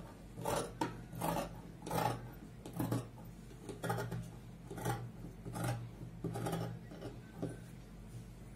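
Tailor's shears cutting through dress fabric on a table in a steady run of about a dozen snips, roughly one every two-thirds of a second, as a sleeve piece is cut out; the snipping stops shortly before the end.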